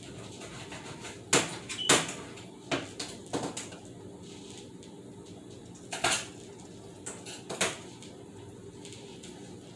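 Knocks and clatters of things being handled in a kitchen sink, about six sharp ones spread through the stretch, the loudest two close together near the start, over a low steady hum.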